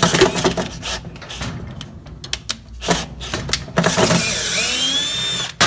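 Power drill running in bursts to back out screws from a washing machine's transmission, with clicks and rattles of the work in between. A short run comes at the start, and a steady run of about two seconds near the end has a whine that dips and rises before cutting off suddenly.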